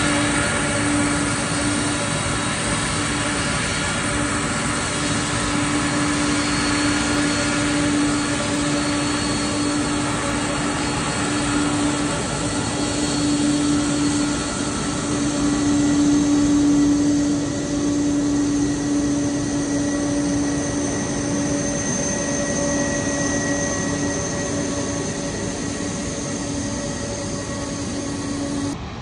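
Boeing KC-46 tanker's twin turbofan engines running at taxi power as the jet rolls past: a steady jet whine over a low hum. It grows loudest about halfway through, then fades as the aircraft moves away.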